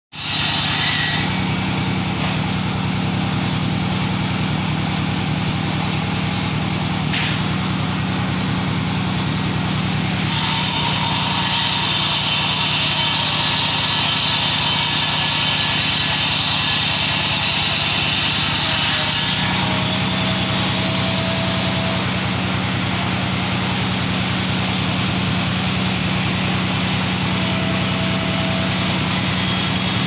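A small motor running steadily with a low hum; for several seconds in the middle a hiss runs over it.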